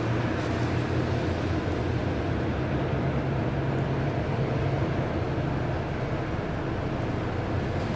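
Steady low engine drone of the tugboats towing a floating crane vessel out of harbour.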